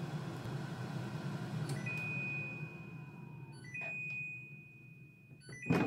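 Cosori Turbo Blaze air fryer's fan running, then winding down as the cook cycle ends, while its end-of-cycle alarm sounds three long, high beeps. Near the end a loud clunk as the basket drawer is pulled open.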